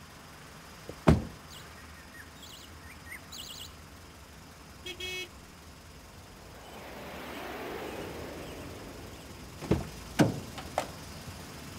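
Car door sounds: a loud thump about a second in, then a short electronic beep near the middle, a car passing, and three more knocks and clicks near the end as the door is handled and pulled open.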